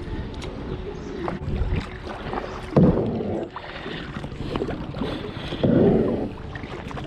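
Kayak paddle strokes dipping into and pulling through river water, a few splashy surges about every one and a half to three seconds, the strongest about three seconds in and around six seconds.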